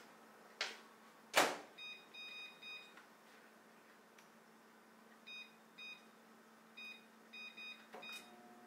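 KitchenAid over-the-range microwave being set: the door knocks shut, then its keypad beeps with short electronic beeps, a few in quick succession and then several more, and the oven starts humming near the end.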